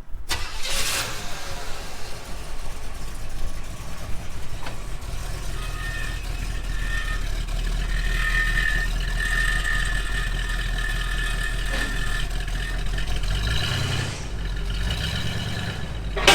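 Big-block V8 of a Buick Riviera running steadily at idle, a low even rumble.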